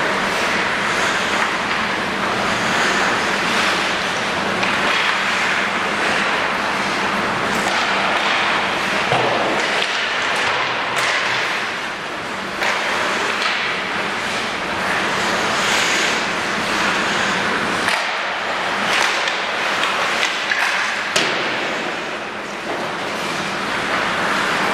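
Ice rink sound: a steady hiss with recurring swells of hockey skate blades scraping the ice and a few sharp knocks, the sharpest near the end.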